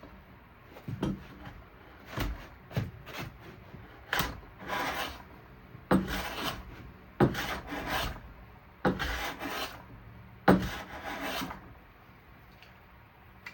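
Hand plane with a freshly sharpened blade taking shavings off a board, in a series of separate strokes under a second each, about six strong ones in a steady rhythm.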